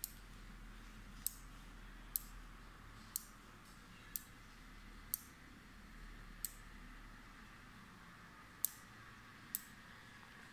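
Nine sharp single clicks from a small switch, about one a second at first and then further apart: the door-lock switch that turns the smart film's power on and off.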